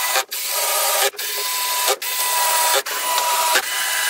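Cordless drill-driver driving wood screws into a wooden housing: a steady whirring motor with a thin whine, cut by brief stops about once a second as one screw after another is driven.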